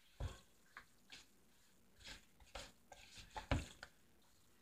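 Faint, irregular clicks and soft knocks of a utensil working a thick tofu and walnut mixture in a plastic mixing bowl, with one louder knock about three and a half seconds in.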